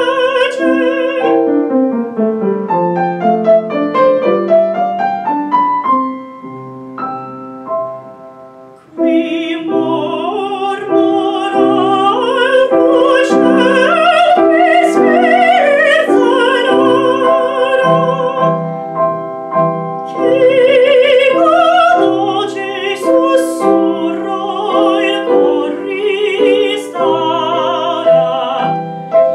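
A woman singing in classical operatic style with wide vibrato, accompanied by piano. After a phrase, the piano plays alone: a falling run that dies away almost to nothing. The voice comes back in over the piano about nine seconds in and sings on.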